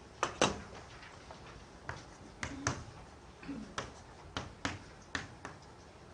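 An irregular series of sharp clicks and taps, about ten over six seconds, some coming in quick pairs.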